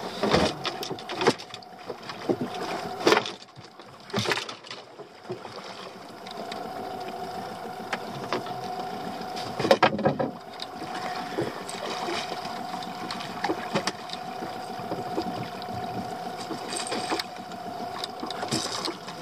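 Water slapping against a small boat's hull, with sharp knocks and splashes while a hooked fish is played on a spinning rod and netted alongside. A steady hum runs underneath from about a third of the way in.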